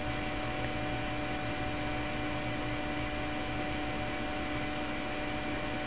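Steady background hiss with a faint electrical hum: the room tone and microphone noise of a home recording, with no other events.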